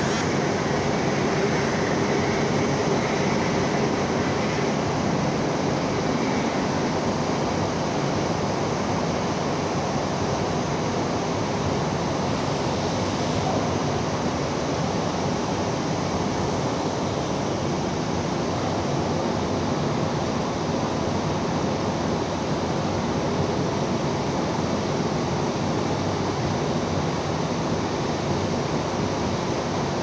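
Blast furnace taphole during tapping: a steady, even rushing noise as flame and sparks jet from the taphole, with a faint low hum underneath.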